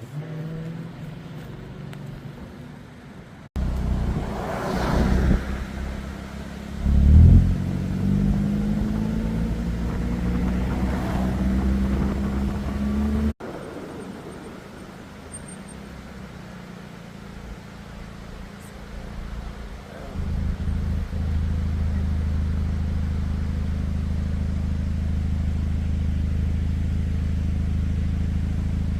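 Car engine running, with its pitch rising slowly as it accelerates in the middle part. The sound changes abruptly about three seconds in and again about thirteen seconds in.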